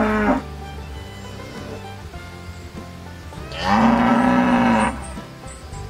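Cow mooing: the end of one moo right at the start, then one long, low moo beginning about three and a half seconds in and lasting over a second, its pitch arching slightly up and down.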